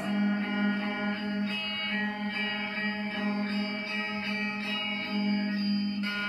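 Music: a steady low drone under a run of plucked string notes.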